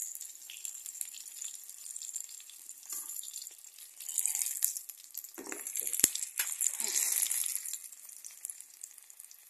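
Green bell peppers sizzling in oil in a steel kadai, a steady high hiss. A few short scrapes and knocks come in the middle, with one sharp clink about six seconds in.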